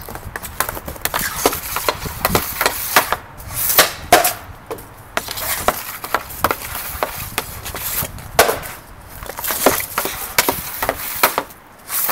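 A hockey stick blade clacks against a puck and a shooting pad in quick, irregular taps as the puck is stickhandled. A sharper crack near the end is the shot.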